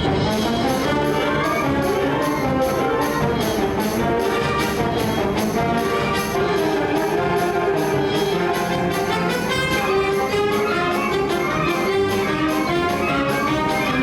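High school band playing live, brass to the fore over a steady percussion beat.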